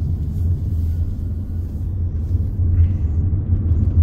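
Steady low rumble of a car's engine and tyre noise, heard from inside the cabin while driving.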